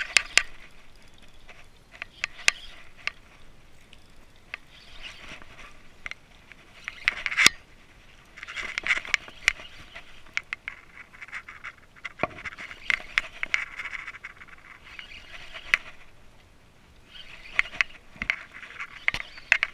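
Fishing reel and rod handling noise: bursts of scraping and rustling with many sharp clicks, coming every few seconds as a fish on a bent rod is reeled in and landed.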